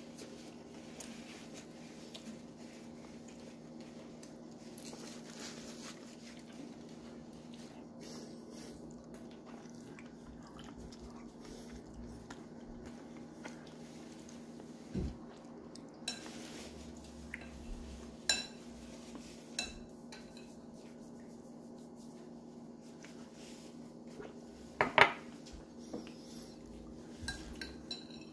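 Occasional clicks and clinks of dishes and utensils being handled on a countertop over a steady low hum. The loudest is a ringing double clink about 25 seconds in.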